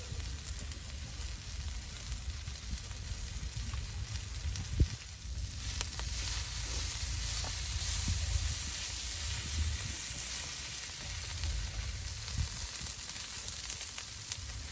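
Pork belly sizzling as it grills over a small oak-wood fire, a steady hiss that grows louder after about five seconds. A single sharp knock comes just before that.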